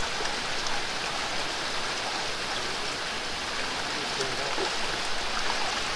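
Flowing water in a creek pool, a steady even rush with no breaks.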